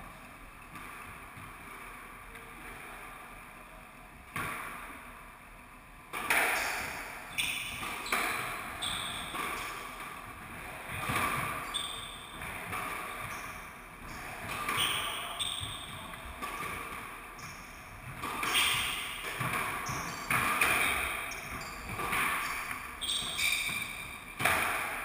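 Squash rally: the ball cracks off rackets and the court walls about once a second, each hit echoing round the court. The first hit comes about four seconds in and steady play starts about two seconds later. Short squeaks of court shoes on the wooden floor come in between the hits.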